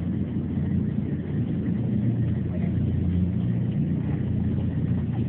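A steady low engine drone, holding an even pitch and level throughout.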